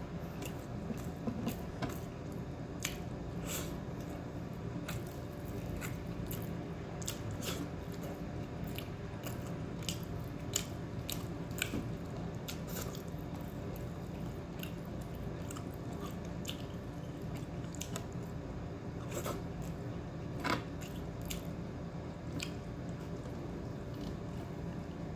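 A person chewing and eating, with frequent short sharp mouth clicks and smacks scattered throughout over a steady low background hum.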